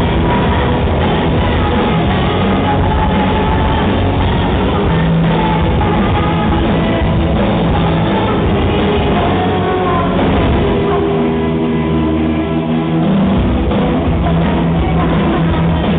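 Live rock band playing loud through a PA: electric guitars and drum kit with a woman singing lead, heard from the audience.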